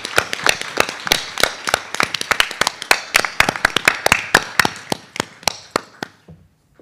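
Audience applauding: many hands clapping together, thinning out and dying away about six seconds in.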